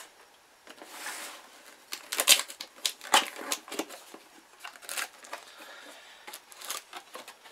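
Cardboard box being handled and opened: a string of sharp knocks and scrapes as it is tipped up and its flaps are pulled open, the loudest about two to three seconds in.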